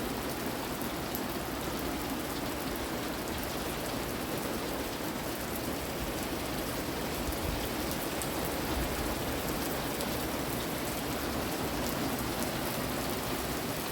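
Steady rain falling, a continuous even hiss that holds at the same level throughout.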